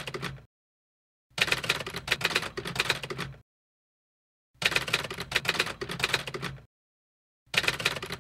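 Typewriter keys clacking in rapid runs of about two seconds, each run followed by about a second of dead silence.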